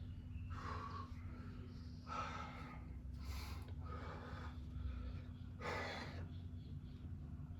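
A man's short, forceful breaths, about five in the space of a few seconds, as he holds flexed bodybuilding poses, over a steady low hum.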